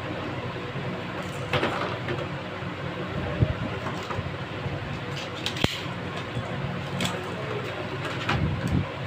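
Handling noise from fitting an RO water purifier's booster pump: a handful of short clicks and knocks of plastic and metal parts, the sharpest about halfway through, over a steady background hiss with a faint hum.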